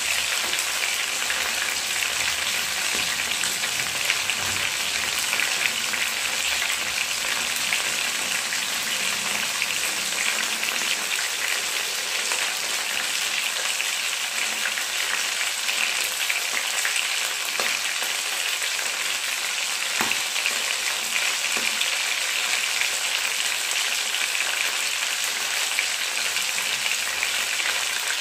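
Marinated chicken pieces shallow-frying in hot oil in a nonstick pan, turned to cook on their second side: a steady sizzle with scattered small pops.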